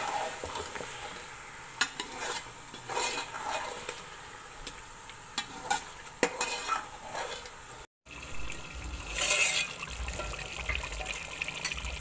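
Metal slotted spoon stirring chicken and ground spices in a metal pot, with scattered clicks and scrapes against the pot as the chicken fries in the masala. After a brief break about eight seconds in, a denser steady sizzle of the masala cooking, with one louder scrape soon after.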